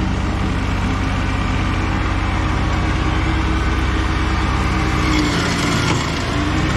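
Tractor engine running steadily while mowing and mulching hay. About five seconds in, its pitch drops briefly as it bogs under load, then recovers.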